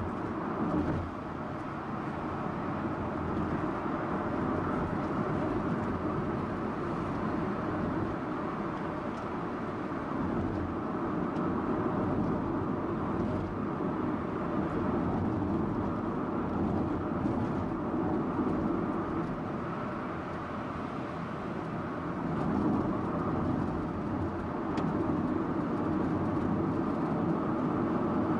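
Subaru Impreza Sports Wagon on the move: steady engine and road noise.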